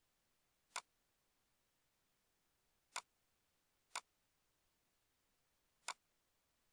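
Four sharp computer mouse clicks over faint background hiss: one about a second in, two a second apart in the middle, and one near the end.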